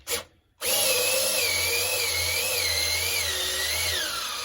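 Electric drill-driver driving a screw into an RC truck's diff mount. It gives a short blip, then runs steadily for about four seconds, its motor pitch wavering and then falling near the end.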